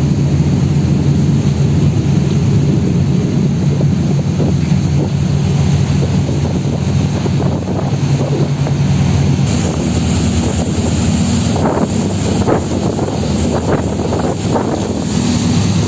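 Catamaran ferry's engines droning steadily as it gets under way, with wind buffeting the microphone and the rush of the wake.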